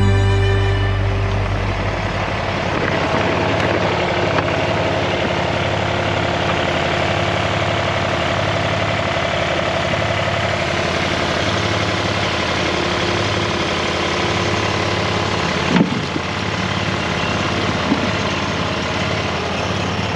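Engine of a compact tracked loader (Toro Dingo mini skid steer) running steadily while it carries and pushes logs, with two knocks in the last few seconds.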